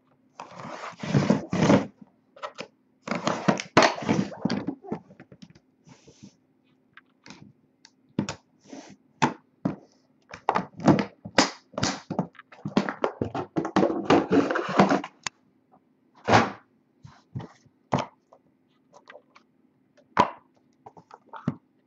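Hands opening a small aluminium briefcase-style card box and handling hard plastic card holders: a string of clicks, knocks and thunks from the case's latches and lid and the cases being set down on a wooden table.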